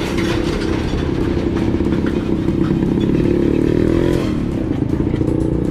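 A motor vehicle engine running close by, steady, its pitch wavering up and down briefly around the middle. A few light clicks come near the end.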